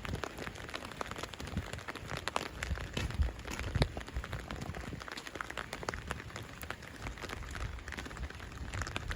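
Rain falling, a steady patter with many irregular drops tapping sharply close by and a few soft low thumps.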